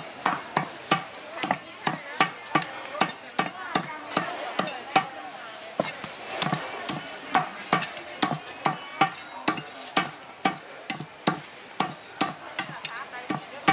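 Meat cleaver chopping a whole chicken into pieces on a thick round wooden chopping block: sharp chops in a steady run, about two to three a second.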